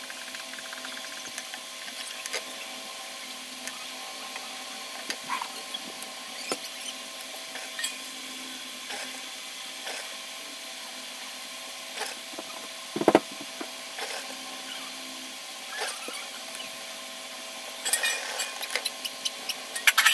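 Cotton fabric being handled and folded on a wooden sewing table: scattered soft rustles and light taps over a steady background hum, with one louder thump about two-thirds of the way in and a busier patch of rustling near the end.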